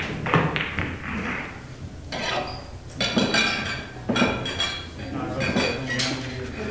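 Pool hall background: sharp clicks near the start, then several bursts of clinking, glassy rattles over a steady low hum and faint voices.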